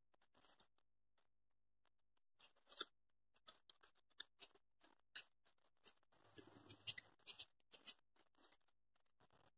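Near silence with faint, scattered small clicks and rustles of EVA foam leaves and a flower stem being handled, coming closer together a little past the middle.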